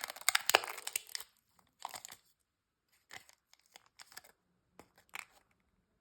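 A plastic candy wrapper being torn open and crinkled: a dense burst of crackling and tearing at the start, then short separate crinkles every second or so.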